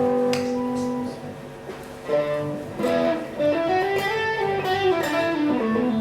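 PRS SE Custom electric guitar with 85/15 S humbuckers, played on its neck pickup through a Mesa Rectoverb 25 amp. A held chord rings and fades about a second in, then a single-note lead phrase of short notes climbs and falls back.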